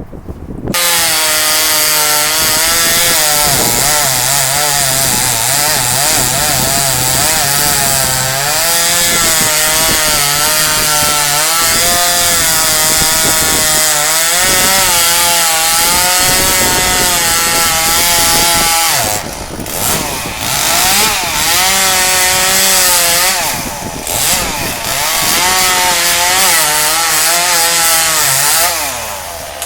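Two-stroke chainsaw cutting through a dead pine trunk, its engine pitch rising and falling as it works the cut. It starts about a second in, dips briefly twice in the second half, and stops near the end.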